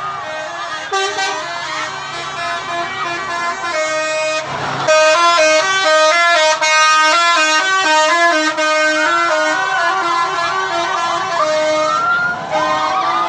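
Bus telolet horns playing a quick stepping melody: several horn tones sound together and jump between a few fixed pitches, growing louder about five seconds in.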